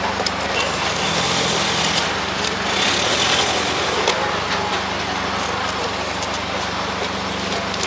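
A small engine running steadily with an even low hum.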